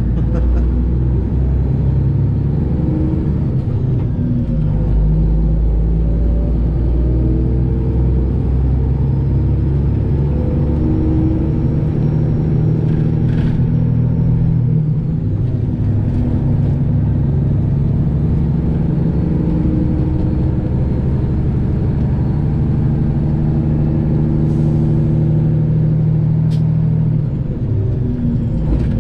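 Detroit Diesel 12.7-litre engine of a Freightliner Classic XL semi truck running under way, heard from inside the cab as a steady drone whose pitch shifts slightly now and then. Near the end the drone drops off briefly, as when the throttle is let off.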